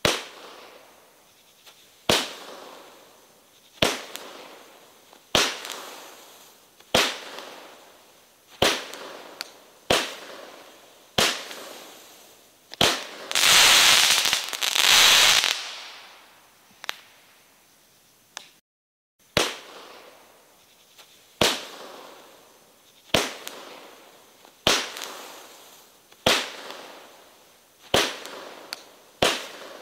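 Consumer firework cake with mine and flying-fish effects, firing shot after shot: a sharp bang about every one and a half seconds, each trailing off in a hiss. About halfway through, a longer, loud hissing spell lasts a few seconds.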